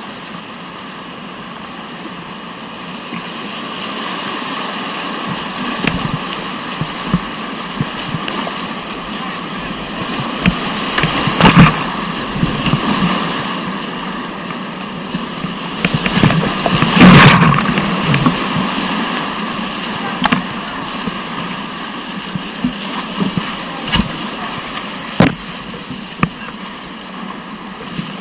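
Whitewater of a river rapid rushing steadily, swelling and fading, with two loud surges of splashing near the middle and a few sharp knocks later on.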